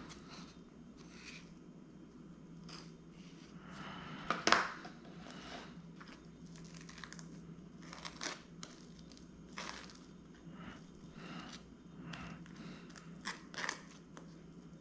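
A table knife spreading cream cheese over butter-toasted bagel halves: irregular scrapes of the blade across the crisp toasted crust, with one sharper, louder stroke about four and a half seconds in.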